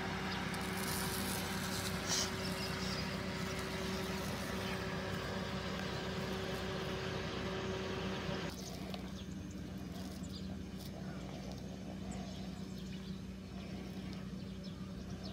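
Steady low hum of an idling vehicle engine under outdoor background noise; the higher hiss drops away suddenly about eight seconds in.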